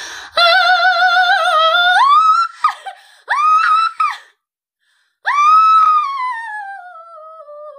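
A woman's classically trained soprano voice singing operatic notes with vibrato, sung seated and without a warm-up. A held note steps up to a higher one, then comes a short high phrase, and then a long high note that slides slowly downward.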